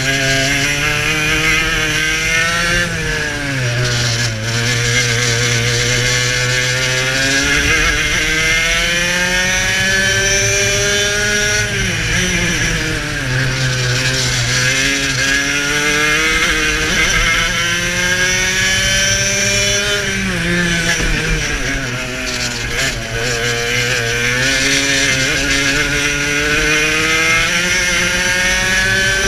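Onboard sound of a two-stroke racing kart engine at race pace. Its pitch climbs steadily along the straights and drops sharply four times as the driver lifts off for the corners.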